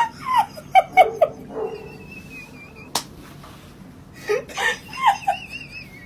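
A person laughing in two short bouts of quick bursts, one at the start and one about four seconds in.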